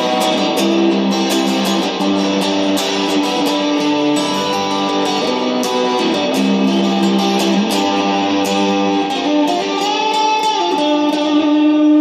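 Telecaster-style electric guitar played solo: a run of picked notes and chords that ring on, settling onto one held note near the end.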